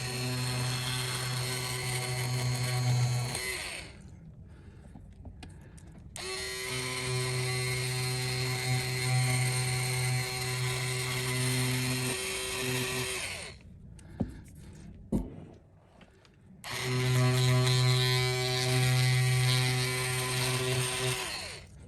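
Small handheld electric tool motor running at a steady pitch in three stretches of several seconds each, switched off between them, with a couple of small clicks in the second gap; it is being used to strip OCA glue from an iPhone 14's original display.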